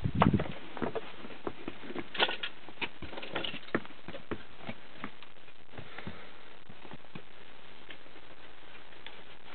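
Miniature horse's hooves clicking irregularly on a concrete path, a few louder knocks among them, thinning out about halfway through. A short low rustle right at the start.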